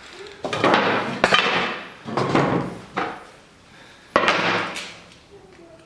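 A handheld power tool runs in four short bursts, each starting sharply and lasting under a second, with a motor hum under a rattling noise. This fits driving screws while fitting dust-collection ducting to a router table.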